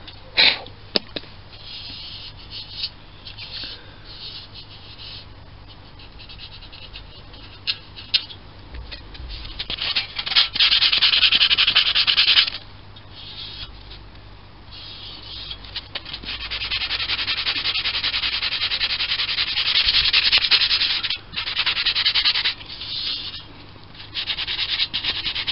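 Denibbing pad rubbed back and forth by hand over the primed metal baseplate of a model steam engine, a scratchy hiss in runs of strokes with short pauses, the longest run lasting about five seconds in the second half. The primer is being flatted smooth, with no high or low spots, before another coat.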